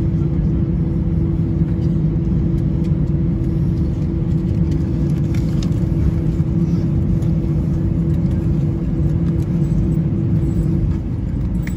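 Airliner jet engines at idle, heard from inside the passenger cabin during the final taxi onto the stand: a steady, loud rumble with a constant low hum, dipping slightly near the end.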